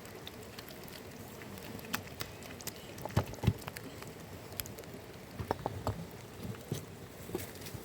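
Steady rain with scattered drops tapping, and a few dull thuds, the loudest pair about three seconds in.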